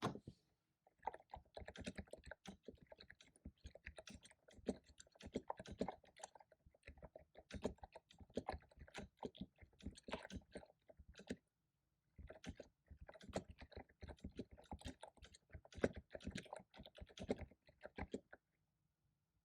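Computer keyboard typing, rapid runs of key clicks with a short pause about halfway through.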